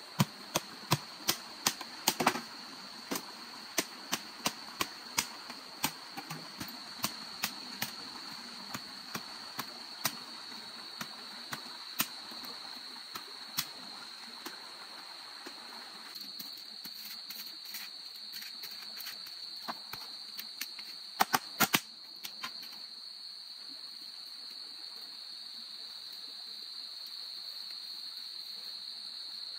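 Sharp knocks or cracks, about two a second at first, then thinning out, with a quick run of four about two-thirds of the way through. Under them runs a steady high-pitched insect drone.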